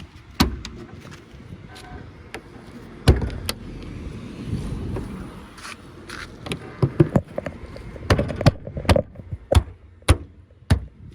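Irregular sharp knocks and clicks from handling a car's body and fittings, about a dozen strikes, densest in the second half, over a low rumble.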